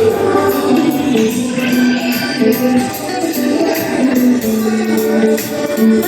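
Music with a steady beat, held melodic notes and a shaker or tambourine-like percussion, with faint singing.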